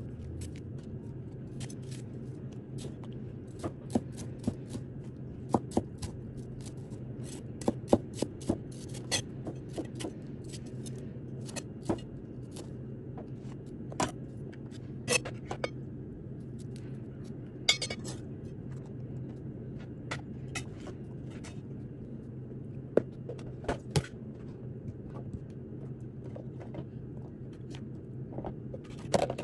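Chinese cleaver chopping green bell pepper on a cutting board: sharp knocks of the blade on the board, irregularly spaced, some single and some in quick pairs, over a steady low hum.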